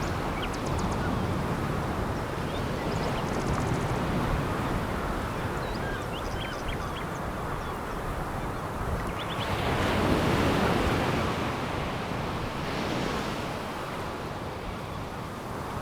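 Sea waves breaking and washing over a pebble beach, in continuous surf with a stronger surge about ten seconds in. A few faint, high, short clicks sound in the first half.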